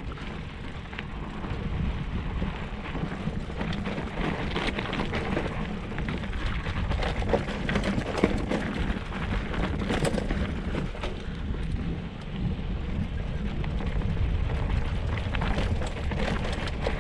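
Wind buffeting the microphone with a steady low rumble, over the crunch and clatter of mountain-bike tyres rolling down a rocky dirt track, with frequent small knocks as the bike jolts over stones.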